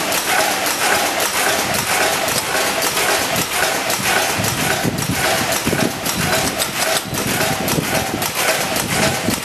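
Fully automatic incense-stick (dupa) making machine running, with a steady rapid clicking and clattering and a repeating cycle a little under twice a second.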